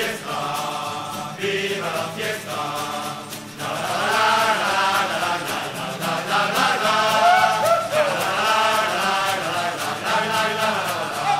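A group of voices chanting a song together in unison, the melody rising and falling without a break.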